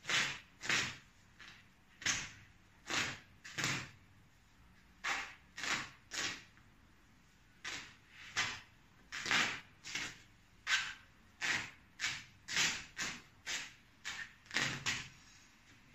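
Nylon fabric of a down jacket being ripped apart by hand. It comes as a quick, irregular run of short tearing rips, about two a second, with a couple of brief pauses.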